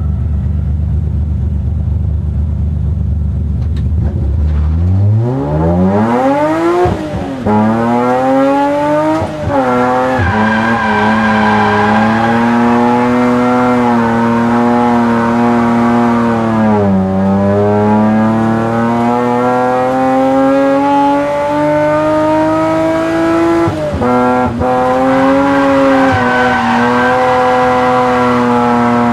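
BMW E34 M5's 3.6-litre S38 straight-six running low and steady, then revving sharply up about four seconds in and held at high revs, with brief drops in pitch around the eighth, ninth, seventeenth and twenty-fourth seconds, as the car is driven hard on a drift run.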